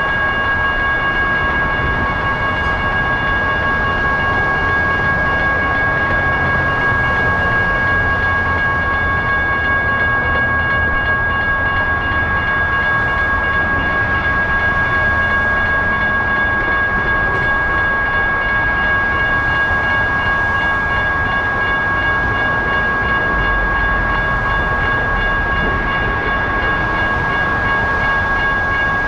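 Railroad crossing warning bell ringing continuously while the crossing is activated. A low rumble sits underneath and deepens near the end.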